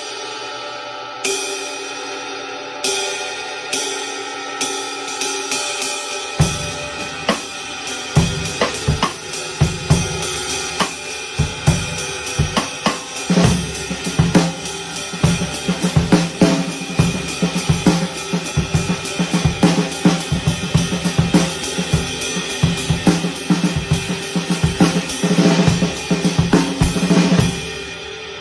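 Handmade Amedia ride cymbal played with a drumstick tip. A few single strokes on the bow are left to ring, then come quicker ride strokes. From about six seconds in, a drum-kit groove with bass drum and snare plays under the ride pattern until it stops near the end.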